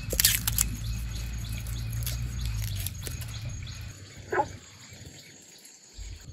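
Rural outdoor ambience: a steady low rumble that stops about four seconds in, and a single short animal call that falls in pitch just after it.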